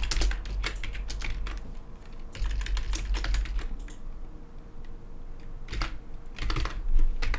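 Typing on a computer keyboard: clusters of quick keystrokes, thinning out in the middle and picking up again near the end.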